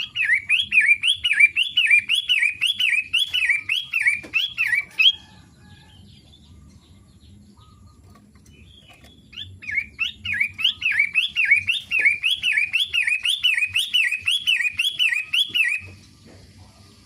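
Long-tailed shrike singing: two bouts of quick, evenly repeated sweeping notes, about two a second, with a pause of several seconds between them.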